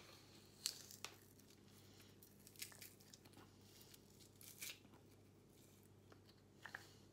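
Faint crunching and clicking of a hand-held garlic press squeezing a garlic clove, with a few short, sharp ticks spread through it.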